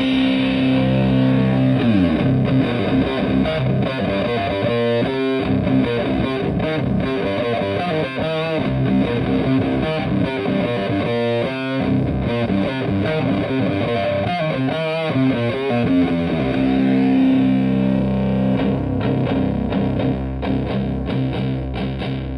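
Stratocaster electric guitar played through a two-knob Park Fuzz Sound pedal into a Fender Twin Reverb-style amp, giving a thick distorted fuzz tone. It plays held chords and busier passages in between.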